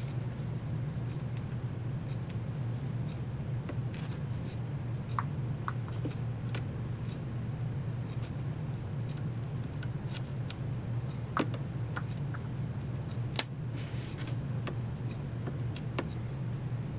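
Scattered light clicks and taps from hand work on a leather hinge of a wicker picnic basket, over a steady low hum; one sharper click about thirteen seconds in.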